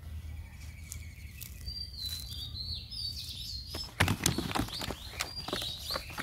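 Birds chirping briefly about two seconds in, then from about four seconds a rapid, irregular run of knocks and slaps as a big freshly caught fish thrashes against the sides of a plastic crate.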